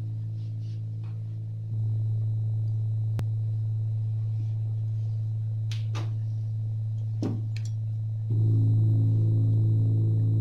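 Background drone music: a steady low sustained tone with a pulsing higher tone above it. It steps louder about two seconds in and again about eight seconds in. A few short faint clicks sound in the middle.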